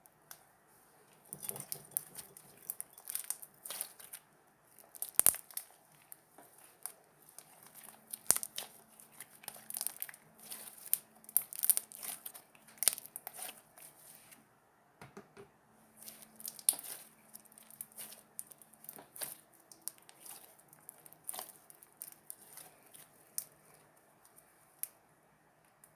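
Slime being squeezed and stretched by hand, giving dense, irregular crackles and pops with a short lull about halfway through.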